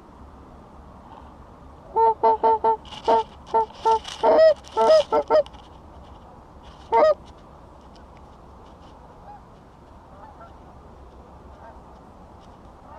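A loud run of goose honks: about a dozen short, quick honks in some three and a half seconds, then one more honk about two seconds later.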